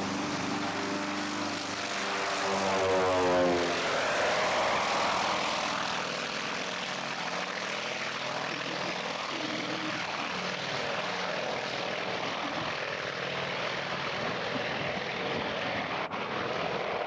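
Propeller airplane flying past, its engine note shifting in pitch as it goes by and loudest about three seconds in, then settling to a steady drone.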